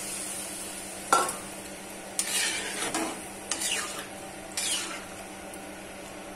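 Metal spatula stirring a vegetable curry in a pan, scraping and clacking against the pan in about five short strokes, the first and sharpest about a second in, over a faint sizzle from the pan.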